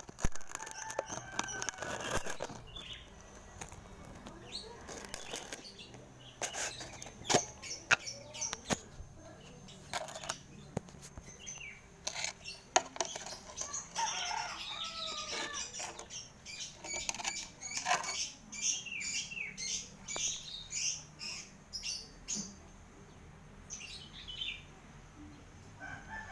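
Small birds chirping in quick, high runs, thickest in the middle stretch, over scattered clicks and knocks of handling.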